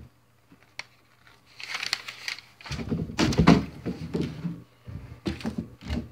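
A cardboard shipping box being handled, rustling and scraping in irregular bursts that start about a second and a half in, with a few light clicks before them.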